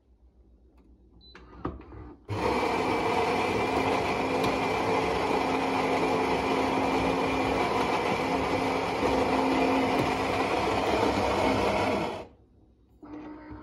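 A Philips 5400 Series LatteGo (EP5144/70) espresso machine's ceramic grinder grinding coffee beans for a freshly selected drink. It makes a loud, steady grinding noise that starts suddenly about two seconds in and cuts off about ten seconds later.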